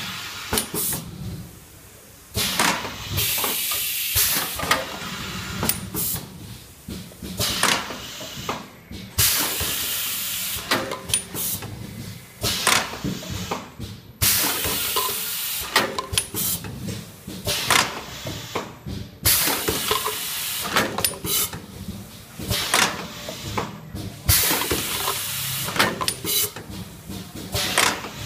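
Automatic tube filling and sealing machine running: loud hisses of air lasting about a second come every five or six seconds, over a steady clatter of clicks and knocks from the rotary turntable and its pneumatic stations.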